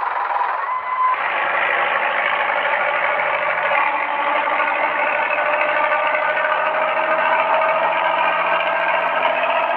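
Diesel engine of a front-engined Hino AK8 bus running with a snoring growl. The note swells about a second in and then climbs slowly in pitch.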